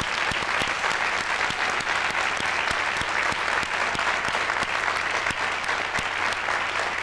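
A large audience applauding steadily, a dense sound of many hands clapping.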